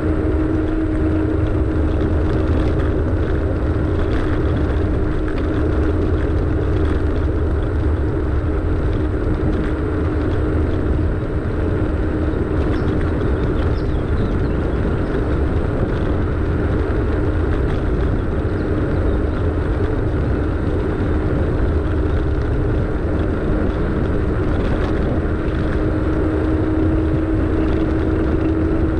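Car driving slowly along a street: steady engine and tyre-on-road noise with a low rumble and a constant hum that rises a little near the end.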